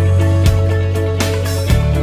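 Instrumental background music: held bass notes with sharp note attacks about once a second.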